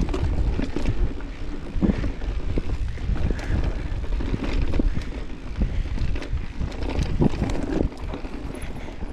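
Mountain bike being ridden fast over a rough dirt trail, with wind rushing over the microphone. Tyres rumble, and the bike rattles and knocks over bumps throughout.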